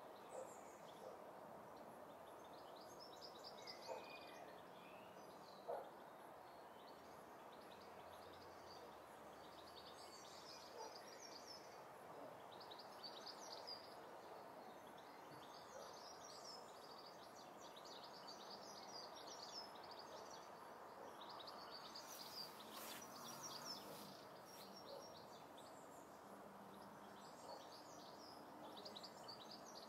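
Faint songbird singing: short, rapid, high trilled phrases repeated every couple of seconds over a steady low hiss of room tone.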